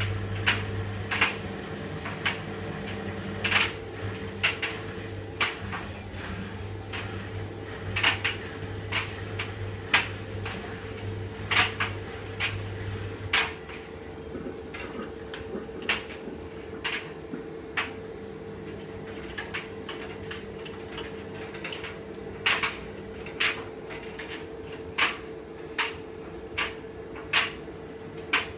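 Washing machine on its spin cycle: a steady motor hum with frequent irregular knocks and clunks as the drum bangs about. The uploader puts the jumping down to the heavy, wet clothes. The deepest part of the hum drops away about halfway through.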